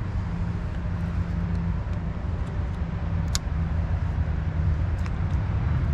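Steady low rumble of road traffic, with a single sharp click about three and a half seconds in.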